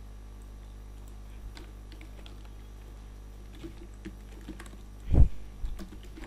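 Computer keyboard with a few scattered, light keystrokes over a steady low hum, and one louder thump about five seconds in.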